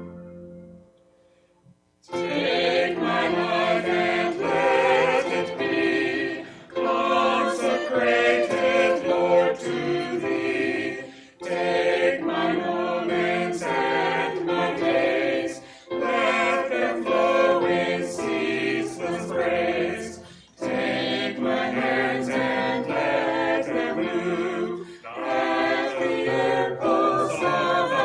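A few piano notes die away, then about two seconds in a choir starts singing, phrase after phrase with short breaths between.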